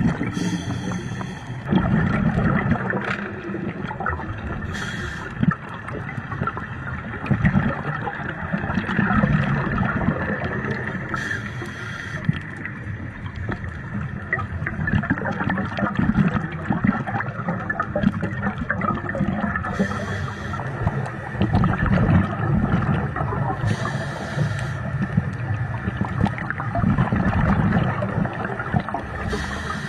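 Underwater sound picked up by a camera in the water: muffled water movement and gurgling, with a short hissing rush every few seconds and fine crackling clicks throughout.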